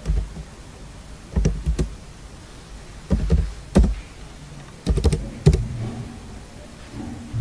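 Computer keyboard keystrokes: slow, irregular key presses, some spaced a second or more apart and a few in quick runs, with a low thump under some of them.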